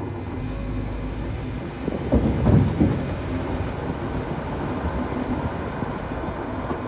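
Steady low rumble of a pickup truck, heard from its open bed, with a louder, rougher stretch about two to three seconds in.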